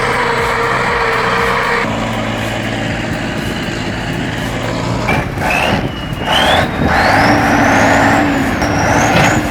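Heavy diesel machine engine running hard under load, with a high whine that rises in pitch from about halfway through.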